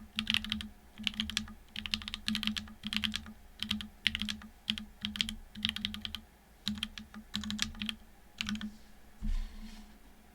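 Typing in quick bursts on a TGR Dolice mechanical keyboard with a carbon-fibre plate and unlubed SW x Gateron Deepping switches with 4.0 mm travel. A low thump about nine seconds in, after which the typing stops.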